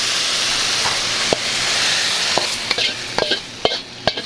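Hot stir-fry of fish and fresh green peppercorns sizzling as it slides out of a wok onto a plate. A metal spatula scrapes and clicks against the wok, and the clicks take over near the end as the sizzle dies down.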